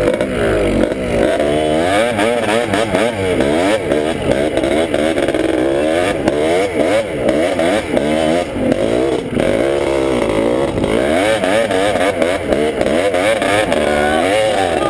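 Honda ATC250R three-wheeler's two-stroke single-cylinder engine being ridden, revving up and down over and over, its pitch rising and falling about once a second.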